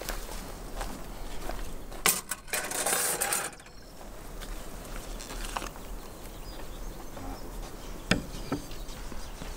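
A bundle of metal kebab skewers clattering on a wooden table, a rattle about two seconds in that lasts over a second. It is followed by a few single sharp knocks of metal on wood, the loudest near the end as a knife meets a wooden cutting board.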